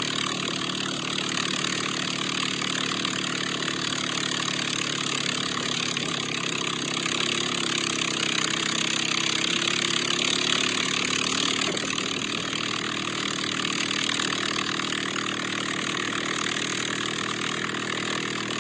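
Engine of the towing vehicle running at a steady speed, with a steady hiss over it.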